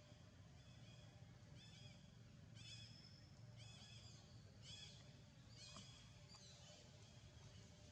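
Faint, high chirping animal calls, short and repeating about once a second, over a steady low rumble.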